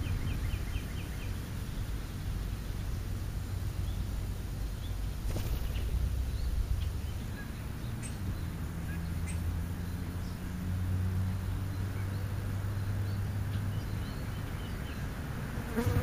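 A flying insect buzzing in a low, steady drone, with faint short bird chirps now and then.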